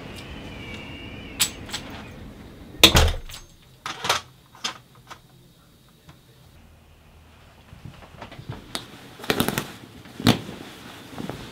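Front door and its lever handle: a short wavering squeak, handle and latch clicks, then the door shutting with a heavy thump about three seconds in. Later, a quick run of clicks as coat snap buttons are pulled open.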